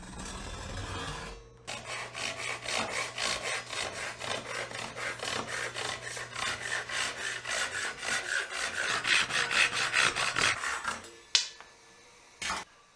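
Japanese double-edge pull saw cutting through a 1-inch hardwood dowel by hand, in quick even strokes about three a second that grow louder toward the end and stop as the cut goes through. A single sharp click comes just after the sawing stops.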